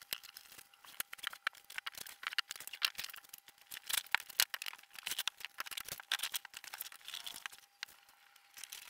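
Flat-pack furniture being unpacked: cardboard and foam packaging rustling and crinkling, with dense irregular clicks and light clatter of panels and parts being handled. A faint steady tone runs underneath.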